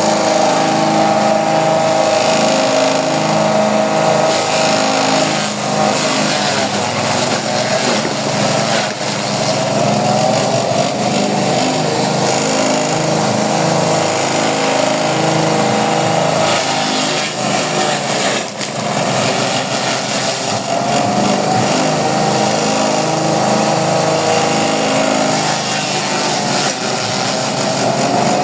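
7.5 hp petrol engine driving a three-blade forage chopper, running steadily under load as green corn stalks are fed through. The engine pitch sags and recovers every several seconds as each bundle is chopped.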